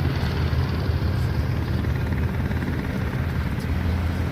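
Steady low rumble of a running vehicle, a continuous drone with no breaks.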